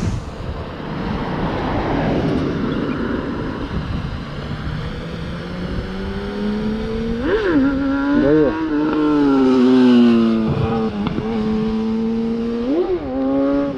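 A quadcopter drone's motors whining steadily as it hovers, the pitch jumping up and straight back down a few times as it is steered. A noisy rush comes before it in the first few seconds.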